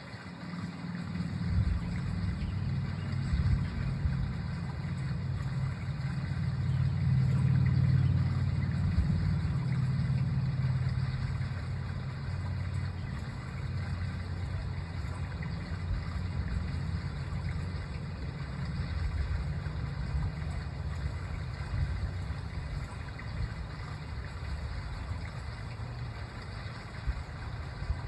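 Low engine rumble that swells to its loudest about a quarter of the way through, then holds on and slowly eases.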